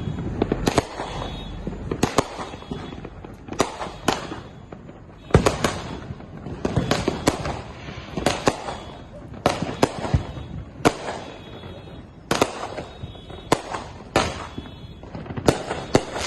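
Neighbourhood fireworks going off all around: about twenty sharp bangs at irregular intervals, some in quick pairs, with crackling between them.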